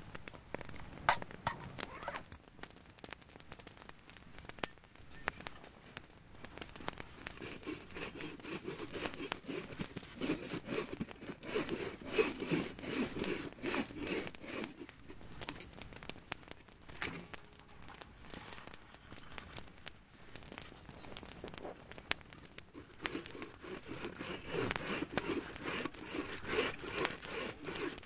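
Wood campfire burning with frequent sharp crackles and pops, over a rushing noise from the flames that swells and fades.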